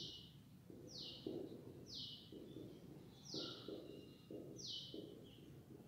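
A marker scratching in short strokes on a whiteboard, with a high chirp that slides downward repeated about once a second, six times in all.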